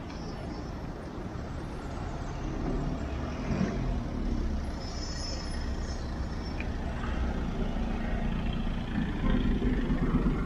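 Street traffic: vehicle engines running close by, growing louder toward the end.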